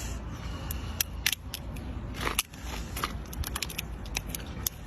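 Cooked lobster tail shell being cracked and peeled by hand: a run of sharp clicks and crackles, with a longer crunching rasp a little past the middle.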